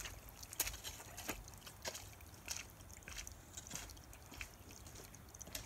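Faint footsteps and trekking-pole taps on a wet, stony path: sharp clicks and scuffs at a walking pace, about one every half second or so, over a low wind rumble.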